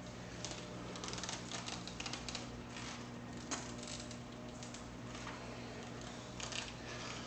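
Irregular rapid clicks and crackles from the cloth wrap and hands working on a 6-inch section of 70D nail as it is bent by hand, over a steady low hum.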